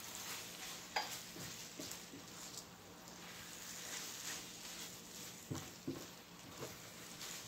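Silicone spatula stirring and scraping food around a Gotham Steel copper-coloured non-stick frying pan, with a faint sizzle and a few light knocks of the spatula against the pan.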